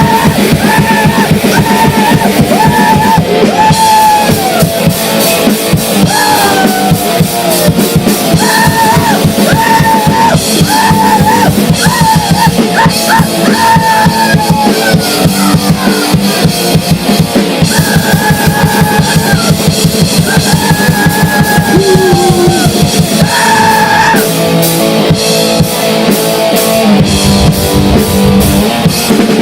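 Grind-noise band playing: very rapid, dense drumming under distorted guitars, with a high pitched line in short phrases over the top.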